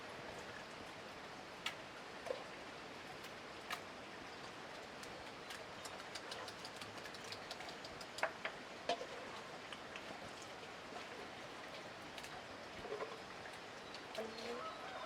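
Steady outdoor hiss with scattered light ticks, and a few short high calls from birds or fowl near the end.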